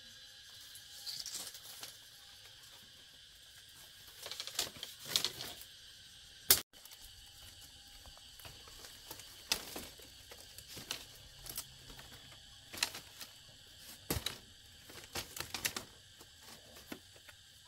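Scattered light knocks, clicks and rustling from hand work on repairing a house, with one sharp loud knock about six and a half seconds in.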